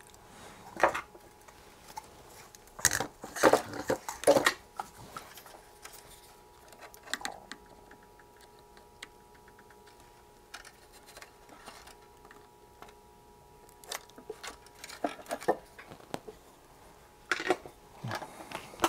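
Scattered clicks, taps and rattles of hands and a soldering iron working on a radio's circuit board and plastic chassis while a capacitor is desoldered. The loudest clusters come about three to four and a half seconds in and near the end.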